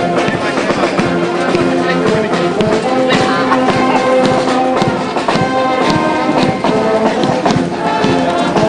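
A brass band playing a tune, with held notes that change every second or so.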